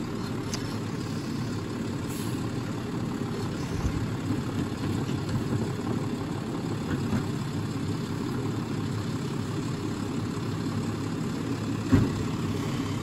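Diesel engine of a Peterbilt automated side-loader garbage truck running steadily at idle, with one sharp knock near the end.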